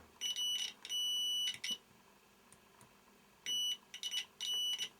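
Multimeter continuity beeper sounding in short, broken beeps and one long beep about a second in, then again near the end, as the probes make and lose contact while circuit board traces are checked for continuity.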